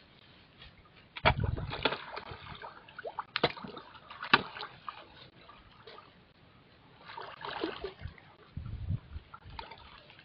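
A crowd of fish feeding at the water surface, splashing and slapping as they snatch thrown food, in irregular sharp splashes with quieter gaps between.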